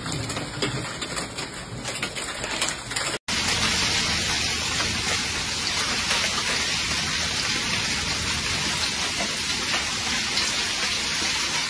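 Hail and rain falling hard, a dense steady hiss of hailstones striking the ground and paving. It is quieter, with scattered ticks, for the first three seconds, then abruptly becomes a louder, even downpour.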